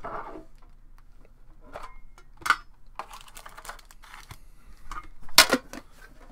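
Handling a metal Premier hockey card tin box: scattered clicks and taps as it is opened and the sealed pack is slid out, with a sharp clack about two and a half seconds in and a louder one about five seconds in.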